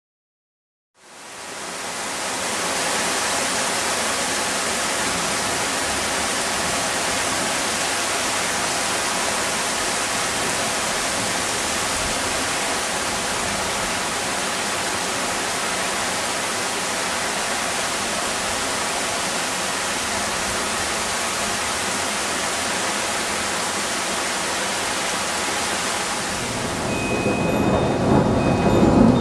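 Torrential thunderstorm rain: a steady, heavy hiss of downpour that fades in about a second in and holds. Near the end the hiss thins and a low rumble of thunder builds.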